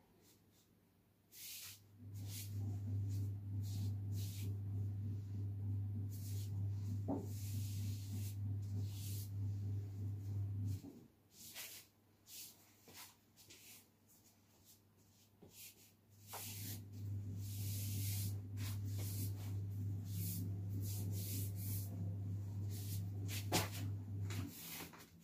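A low steady hum that runs for about nine seconds, stops, then returns for about eight more, with short soft rubbing sounds of hands smoothing fondant over a cake.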